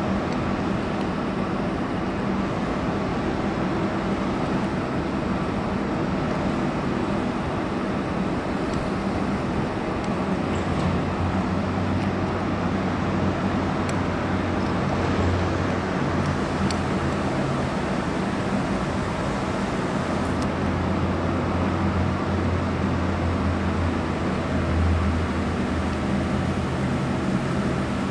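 Steady rumble of city road traffic, with a low engine drone that swells in the second half.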